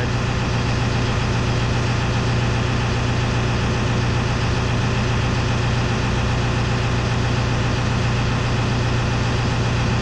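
Tadano 80-4 crane's diesel engine idling steadily with a constant low hum, its air conditioning running on max.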